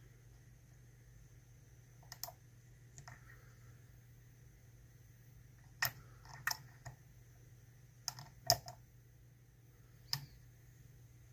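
Dimple-lock pick and tension bar clicking against the pins and warding inside an ISEO R6 six-pin dimple lock cylinder as it is picked. Scattered light metallic clicks, most of them in the second half.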